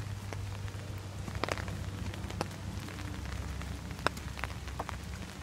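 Steady rain falling, with single heavy drops tapping sharply now and then. The loudest taps come about a second and a half and four seconds in.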